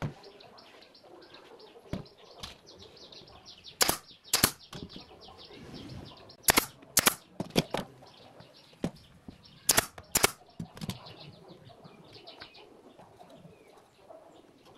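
Sharp wooden knocks and clicks, mostly in pairs, as small pine pieces are handled and set against a wooden frame. Faint chirping runs underneath.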